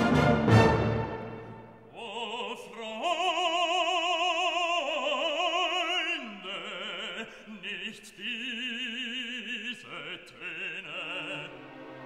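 Background classical music: an orchestral chord dies away, then a singer holds operatic notes with strong vibrato, moving from pitch to pitch.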